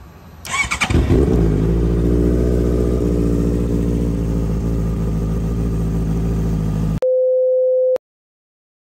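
A motorcycle engine catches with a sudden burst about half a second in and settles into a steady idle. It cuts off at about 7 s and is followed by a steady one-second electronic beep, then silence.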